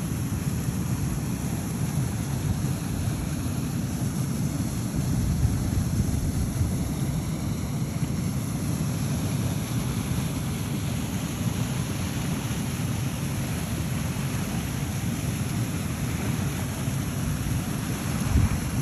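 Wind blowing across the microphone: a steady low rush of noise, with a short bump just before the end.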